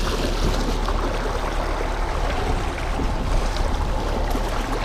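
Water rushing and splashing in the wake behind a small boat's outboard motor at trolling speed, over a low steady rumble.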